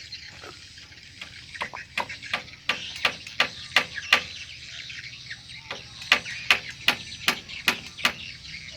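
Sharp knocks from a hand tool during masonry and carpentry work, coming about three a second in two runs with a pause between them.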